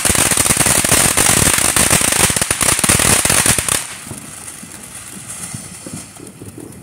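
Ground fountain firework spraying sparks with a loud hiss and a dense, rapid crackle. About four seconds in, the crackling stops abruptly and only a much fainter hiss goes on.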